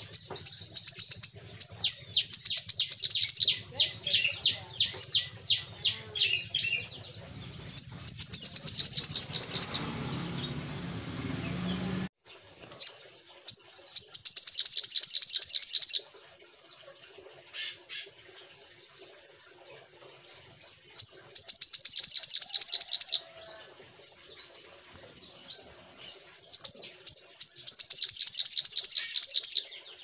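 Male olive-backed sunbird singing: loud bursts of rapid, high trilling about two seconds long, five times over, with quieter scattered chips between them.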